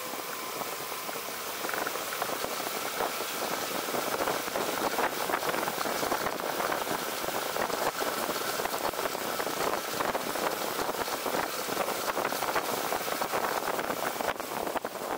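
Motorcycle-with-sidecar engine running as the rig rides up the street and approaches. It grows louder about two seconds in and stays close and steady through the rest.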